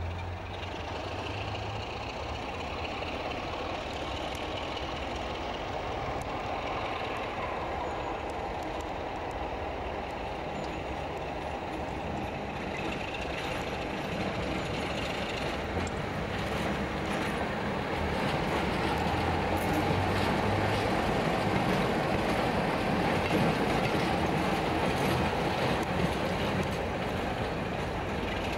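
British Rail Class 33 diesel locomotive with its Sulzer eight-cylinder engine running, a steady low engine note over wheel and rail noise, louder in the last third.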